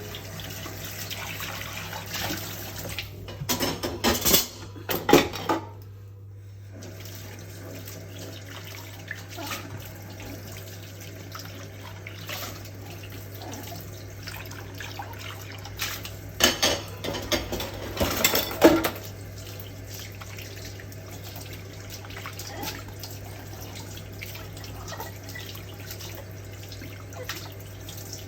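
A kitchen tap running into a sink as dishes are washed, with bursts of dishes and cutlery clinking and clattering a few seconds in and again about two-thirds of the way through. A low steady hum sits underneath.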